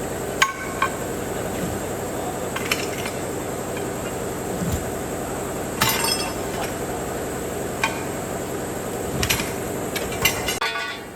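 Metal tools clinking and knocking in a handful of scattered strikes, over a steady machine hum that stops about ten and a half seconds in.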